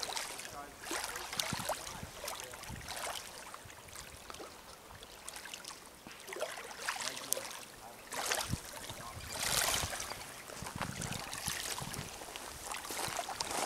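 Small waves lapping and washing against a pebble lakeshore in uneven swells, the loudest wash coming about two thirds of the way in.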